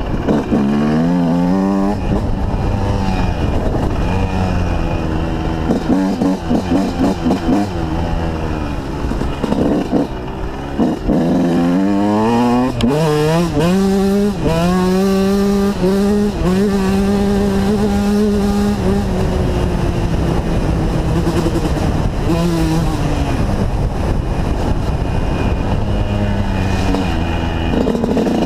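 Motocross bike engine being ridden hard: choppy throttle blips early on, then the revs climbing through several gear changes about halfway through, holding steady at speed, winding down, and rising again near the end.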